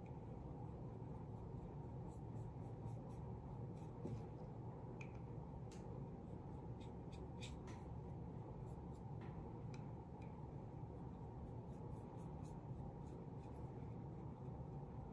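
Small synthetic paintbrush spreading wet urethane sealer over the wooden back of a phone stand: faint, irregular brush strokes and light ticks over a steady low hum.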